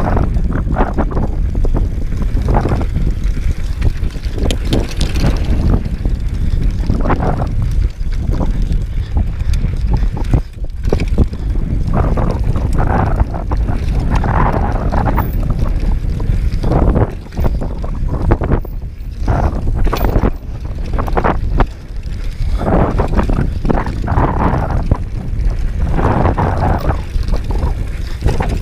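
Wind buffeting the microphone of a GoPro carried down a dirt downhill trail, mixed with the rumble of tyres on dirt and an irregular clatter of the Specialized Demo 8 downhill bike over rough ground, in uneven surges.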